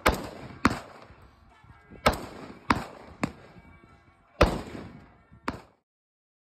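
Gunshots at a shooting range, about seven irregularly spaced shots, each with a short ringing tail. The sound cuts off abruptly near the end.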